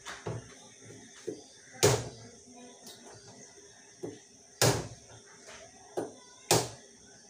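Large kitchen knife hacking into a very hard whole pumpkin: three loud chopping strikes a few seconds apart, with lighter knocks between.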